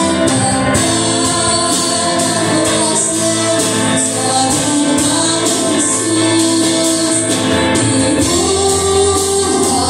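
A woman sings a Cebuano praise-and-worship song into an amplified microphone, backed by a live band of keyboard, guitar and drums.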